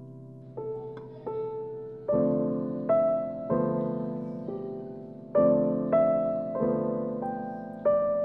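Background piano music: gentle notes and chords, each struck and then fading, about one or two a second.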